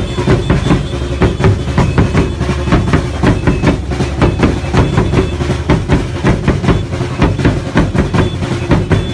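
Rhythmic percussion, a steady fast beat of drum strikes, over the low running of many motorcycle and scooter engines.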